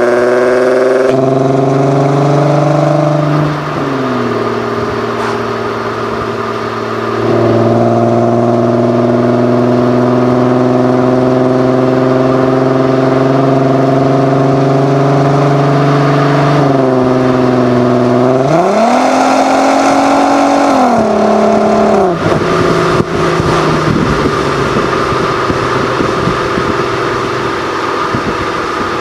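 Audi TT 8N 3.2 VR6 engine and exhaust with 200-cell catalytic converters, running at held revs. The revs dip a few seconds in and pick up again, climb briefly and fall back about two-thirds of the way through, then settle lower.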